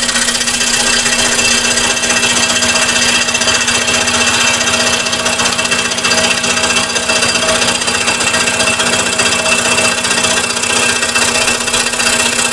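Scroll saw running and its blade cutting steadily through a stack of taped wood layers, a loud even saw noise over a steady motor hum.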